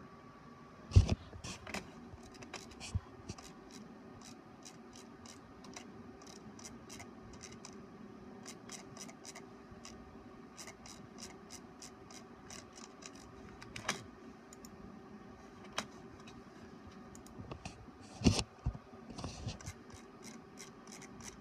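HP all-in-one inkjet printer running, with a steady mechanical hum and many light ticks and clicks from its mechanism. Two louder knocks, about a second in and near the end.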